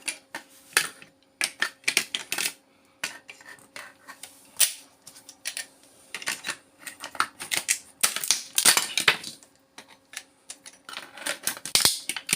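Irregular metallic clicks, clinks and scrapes of a power adapter's transformer being pulled apart by hand and with tools to strip out its copper wire. The sounds come in uneven clusters, busiest about eight to nine seconds in and again near the end.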